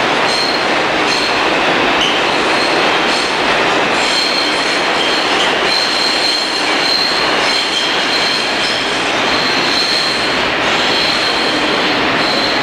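New York City subway train running through a tunnel: a steady loud rumble of wheels on rail, with a high wheel squeal that comes and goes.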